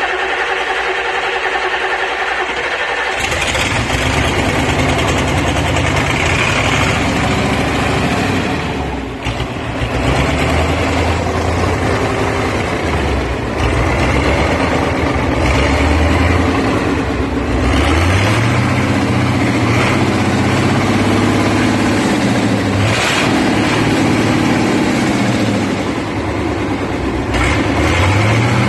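Mercedes OM442 V8 diesel engine on a test stand, turned over and catching about three seconds in, then running loudly. It is revved up and down by hand at the throttle several times in the second half, the pitch rising and falling.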